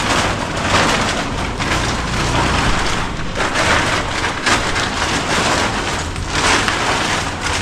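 Clear plastic bicycle cover crinkling and rustling as it is pulled off a bicycle, swelling in several rough bursts.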